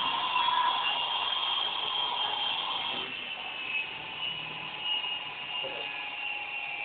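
Small yellow indoor RC helicopter's electric motors whining as its rotors spin, a steady high whir whose pitch wavers slightly as the throttle changes.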